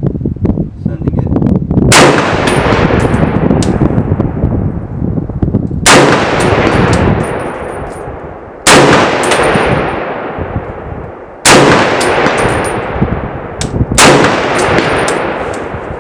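Five loud rifle shots from an FN SCAR 17S, a 7.62 mm semi-automatic rifle fitted with its factory PWS muzzle brake, fired at a slow, irregular pace a few seconds apart. Each shot is followed by a long, fading echo.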